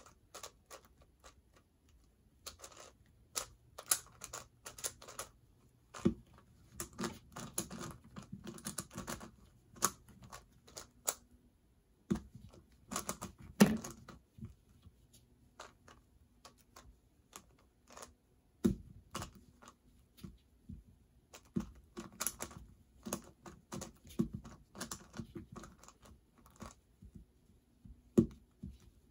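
Plastic speed-cube puzzle being turned fast: an irregular clatter of clicks in spurts, with a few louder knocks and short pauses.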